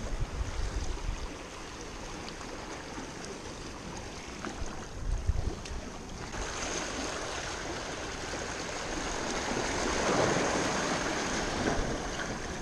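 Seawater washing and lapping against jetty rocks, swelling louder about ten seconds in, with wind rumbling on the microphone.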